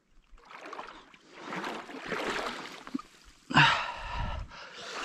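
Water sloshing and splashing with shuffling movement, as of wading in a shallow creek, with a louder short burst about three and a half seconds in.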